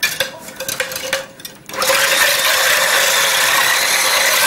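Electric immersion blender with a whisk attachment switching on just under two seconds in and running steadily, whipping egg whites in a tall beaker. A few light clicks come before it starts.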